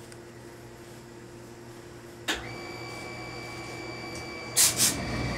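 A click, then a steady high-pitched whine, then near the end two short loud bursts of steam hissing from a tailor's steam iron, with steam hissing on after them.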